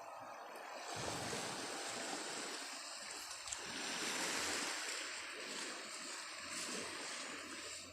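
Sea waves washing onto the beach: a steady rush of surf that swells about a second in and again around the middle.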